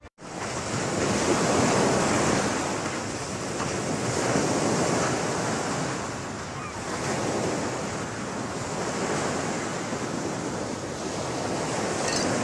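Ocean surf breaking on a sandy beach: a steady wash of waves that swells and eases every few seconds.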